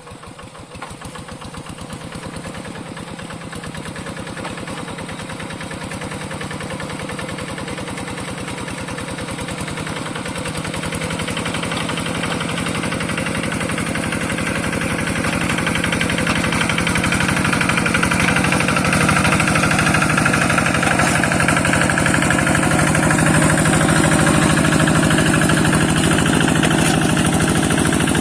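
Single-cylinder diesel engine of a two-wheel hand tractor running with a steady rapid beat of firing pulses, growing steadily louder over the first twenty seconds or so and then holding.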